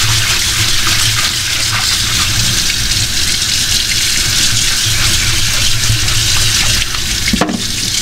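Tap water running steadily into a stainless steel sink and over a gutted chub mackerel as its belly cavity is rinsed, washing the blood line off the backbone.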